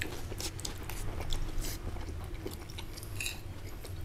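Someone chewing food, with faint, irregular crunches and clicks.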